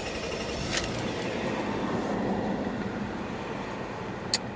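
2003 Honda Accord's 3.0 L V6 engine idling steadily just after being started with a newly replaced ignition coil. Two brief clicks are heard, about a second in and near the end.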